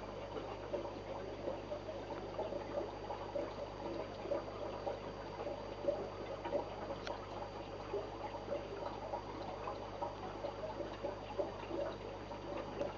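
Aquarium water trickling and bubbling in a steady patter, the kind made by a filter outlet or aeration, over a steady low hum.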